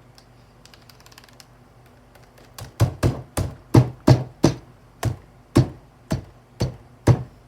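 A computer keyboard with its keycaps removed being hit hard again and again: light clicking at first, then about a dozen loud smacks on the bare keys, roughly two a second.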